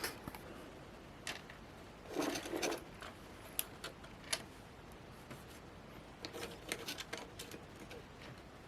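Scattered small clicks, ticks and a brief rustle of hands handling small parts and plastic pieces, with a cluster of light ticks near the end.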